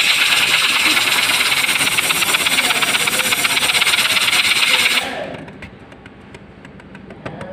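Compressed-air blow gun hissing loudly as it blasts air onto a ball bearing fitted with a small sheet-metal spinner blade, driving it at high speed. The air cuts off suddenly about five seconds in, leaving the bearing spinning on freely with a quieter whir and fine, rapid ticking.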